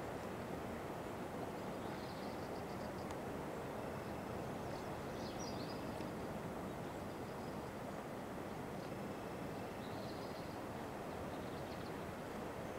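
Faint steady background hiss with faint, short, high bird chirps now and then.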